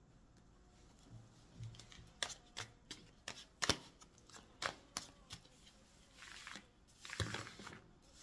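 Oracle cards being gathered up from the table by hand: a run of sharp clicks and snaps as the cards are picked up and knocked together, then sliding swishes of cards near the end.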